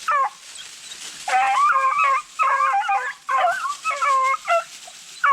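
Hunting beagles baying: a run of high, drawn-out yelps in about four bouts, the kind of cry a pack gives when running a rabbit's trail.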